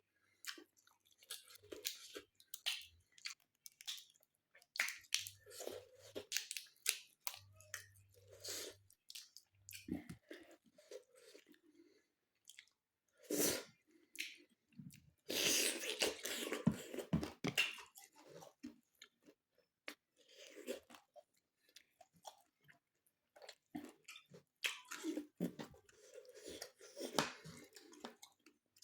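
A person chewing food close to the microphone: irregular wet mouth clicks and crunching bites, with a longer, denser stretch of chewing noise about halfway through.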